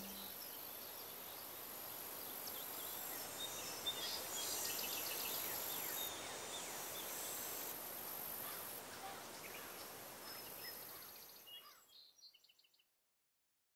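Faint outdoor park ambience with small birds chirping over a steady high hiss, fading out to silence near the end.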